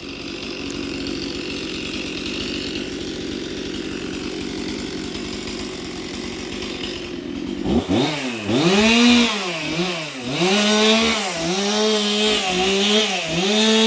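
Chainsaw idling steadily, then from about eight seconds in revved up and down again and again, the pitch rising and falling about once a second.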